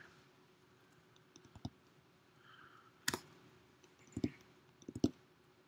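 A few faint, scattered clicks and taps over a low steady hum, the loudest about three seconds in and a small cluster near the end.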